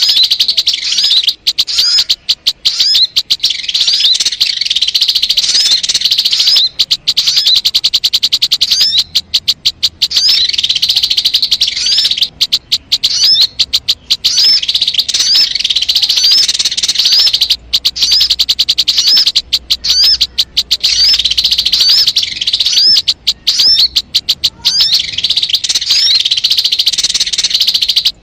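Sogon bird call played loud and continuous: a dense, very rapid trilling chatter, with short upward-curving notes repeating about once a second over it.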